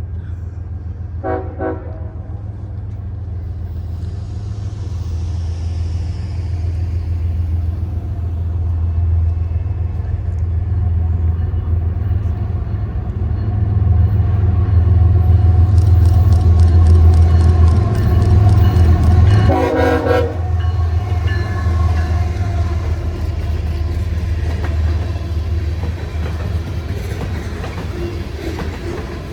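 Diesel freight locomotives of a CSX manifest train, a GE Evolution-series unit leading and an EMD SD70AC second, running loud as the train approaches and passes, the engine rumble building to a peak in the second half. The locomotive horn sounds briefly twice, once about a second and a half in and again, louder, about twenty seconds in. Wheels click over rail joints as the train goes by.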